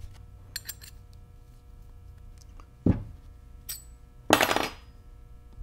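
Steel transmission gears and brass synchronizer rings clinking as they are handled and fitted onto the gear cones: a few light clicks, a dull knock about three seconds in, and a longer metallic rattle near the end.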